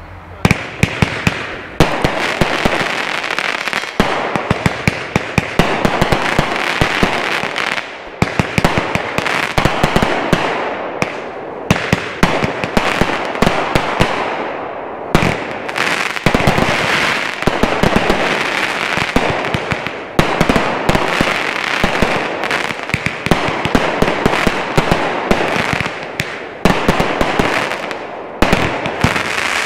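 Consumer aerial fireworks from a finale of 500-gram cakes and ball shells firing in a rapid barrage: many sharp launch thumps and bursting reports a second over a continuous hiss and crackle, with only brief dips between volleys.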